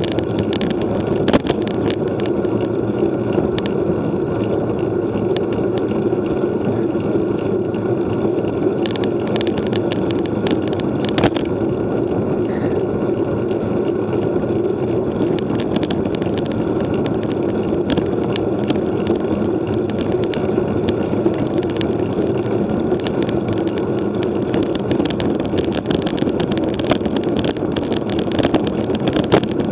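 Steady rushing noise of a road bike ridden at speed, picked up by a camera mounted on the bike, with scattered sharp clicks and rattles throughout.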